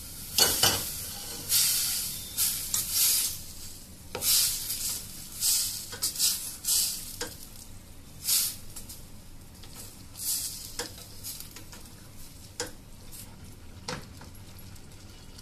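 Wooden spatula stirring black-eyed peas and diced potatoes in a simmering steel pot: wet scraping strokes, frequent in the first half and thinning out later, with a few sharp taps near the end.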